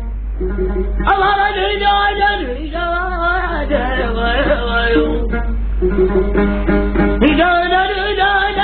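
A voice singing long, wavering, ornamented phrases over a plucked string instrument. The voice drops out for a moment after the middle, leaving the plucked notes, then comes back near the end.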